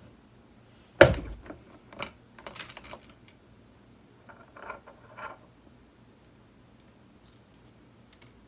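One-ton hand arbor press forcing the trunnion out of a stock GM rocker arm: a sharp metallic crack about a second in, then scattered light metal clicks and clinks from the press and parts.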